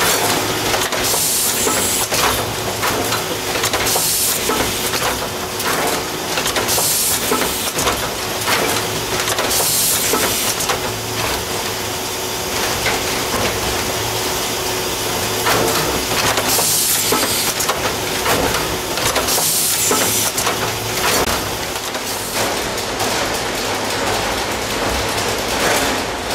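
Mesys Muller chequebook production machine running: the conveyor and feed mechanism clatter steadily with rapid clicks over a low hum, broken every few seconds by short hisses of compressed air from the pneumatic actuators.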